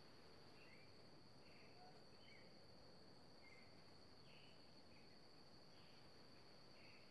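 Faint natural ambience: a steady high insect trill throughout, with scattered short, soft chirps.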